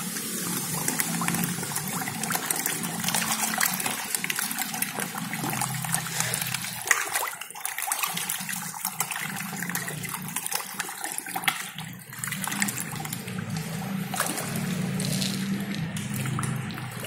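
Water splashing and trickling continuously as a dense crowd of red tilapia stirs the surface of a concrete tank, full of small splashes, over a low hum that breaks off briefly twice.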